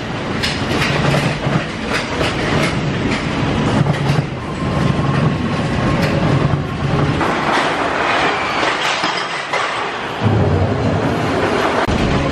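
Space Mountain indoor roller coaster car running fast along its track in the dark, a continuous rattling clatter and rush of noise. The low rumble drops away for a couple of seconds past the middle, then returns.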